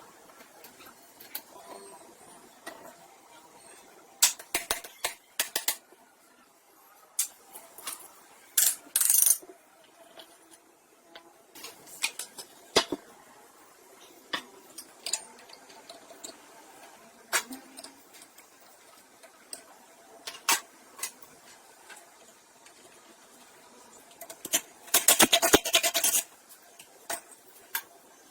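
Metal parts and hand tools clinking and clattering now and then during motorcycle repair work, with a fast run of rattling clatters near the end.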